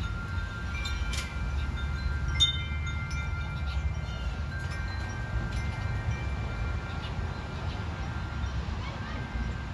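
Wind chimes ringing: several long, overlapping tones at different pitches that come and go, over a steady low rumble.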